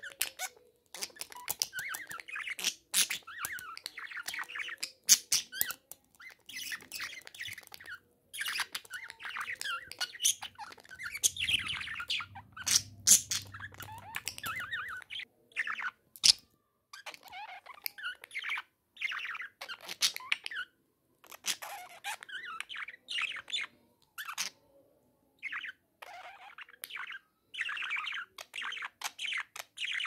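Budgerigar chattering and warbling at its reflection in a mirror, in quick broken runs of squeaks, chirps and scratchy notes with short pauses, and a few sharp clicks.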